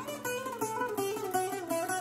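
Background music played on plucked string instruments, a guitar-like melody of held notes that change every fraction of a second.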